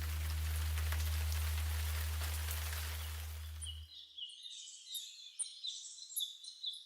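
A steady low hum under a rain-like hiss, which cuts off about four seconds in. Then small birds chirp in a quick run of short, high calls.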